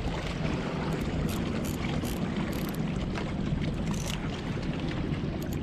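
Wind buffeting the microphone in a steady low rumble, with small waves lapping and splashing against the rocky shoreline in short faint ticks.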